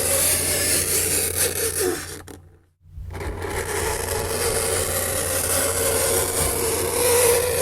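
Fingernails scraping across a chalkboard, with a steady squealing note at first. The scraping fades out to a brief silence about two and a half seconds in, then starts again and carries on.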